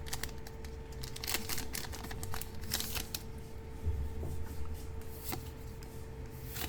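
Japanese One Piece trading cards being flipped and slid past one another in the hand, a run of light flicks and scrapes, over a faint steady hum.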